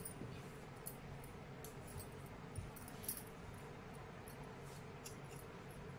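Faint scattered clicks and light clinks from handling a hand-knitted yarn piece and a pair of scissors, over a steady low hum.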